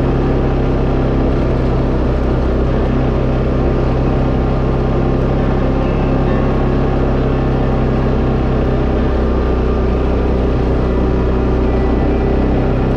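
Engine of a Tracker Off Road 700 ATV running steadily while riding, a constant drone that holds the same pitch and level throughout.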